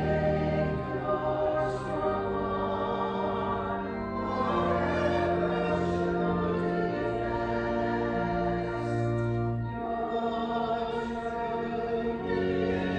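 Church music: voices singing a slow hymn in long held chords, the chord changing every second or two.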